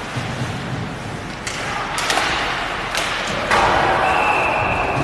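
Ice hockey play in a rink: sharp knocks of puck and sticks against the boards a few times. About three and a half seconds in the noise rises, and a referee's whistle blows one long steady note near the end, stopping play.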